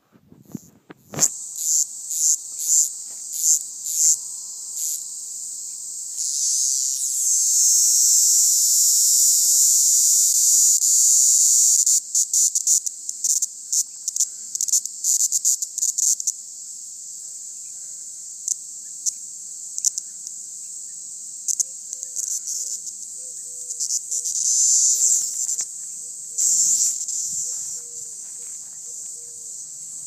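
Cicadas calling with a high, dry buzz. It starts as a quick run of short pulses, swells into a steady buzz lasting several seconds, then breaks into short stutters. After that it drops quieter, with another swell of buzzing later on.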